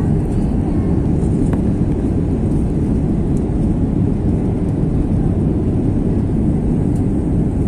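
Steady, deep cabin noise of an airliner climbing after takeoff: its jet engines and the airflow heard from inside the passenger cabin.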